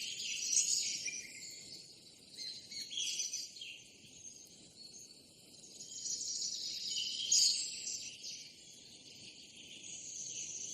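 Birds chirping and calling over a steady insect hum, a natural outdoor ambience. The chirps come in waves, loudest about half a second in, around three seconds in and around seven seconds in.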